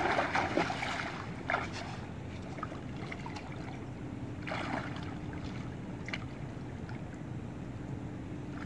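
Shallow river water sloshing and splashing as a man wades in and reaches down by hand to grab a hooked catfish. There are a few short splashes over a steady wash of water and wind.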